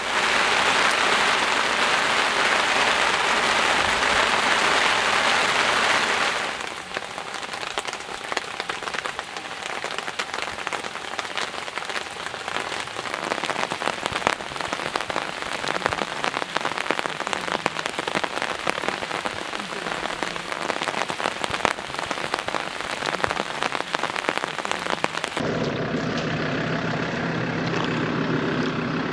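Rain falling: heavy and dense for about the first six seconds, then lighter, with many single drops ticking on a surface. About three seconds before the end the sound changes abruptly to rain with a low steady hum underneath.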